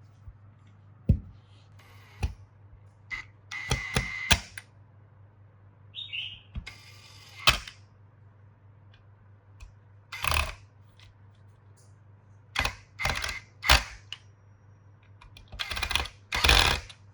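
Hand work on small metal tool parts: a series of separate clicks, knocks and short scraping rattles with pauses between them, and a brief squeak about six seconds in.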